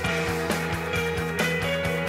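Music with a steady beat, a little over two beats a second, over sustained chords.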